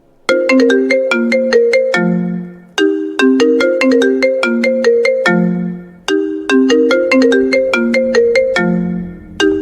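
Mobile phone ringtone: a short melody of quick, bright notes, repeating about every three seconds.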